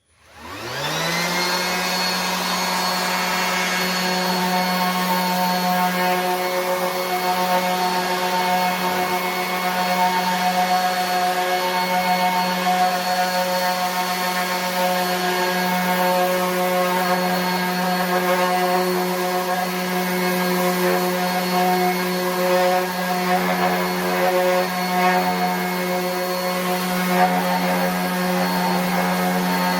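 RIDGID 18-volt cordless 5-inch random orbit sander switched on: its motor spins up with a rising whine over about a second, then runs steadily while sanding a scrap board, the hum wavering slightly as the pad is worked over the wood.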